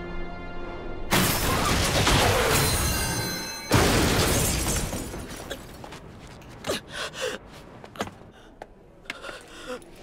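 Animated crash sound effects: a loud crash and rush starts about a second in and lasts about two and a half seconds. A second sharp crash follows and dies away over a couple of seconds, then a few scattered small knocks and scrapes.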